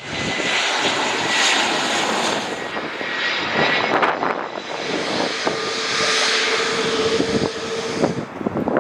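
Boeing 777-300ER's GE90 jet engines during a landing: a loud, steady rush. A high whine runs through the first half, and a lower steady tone comes in about halfway and lasts until near the end.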